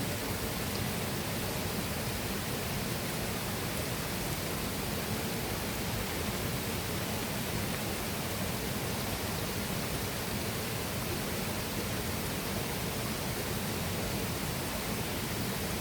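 Steady rush of flowing water from a river and waterfall: an even, unbroken hiss.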